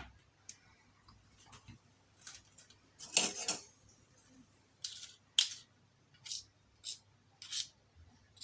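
Spoon scraping through thick honey and against its container while scooping it out, in a string of short scrapes, the longest and loudest about three seconds in.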